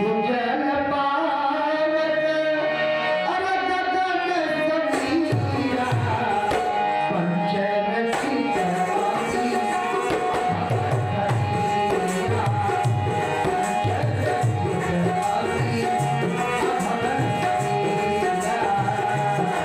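Devotional bhajan music: tabla drumming in a steady rhythm under a sustained melody line, with singing in the first few seconds.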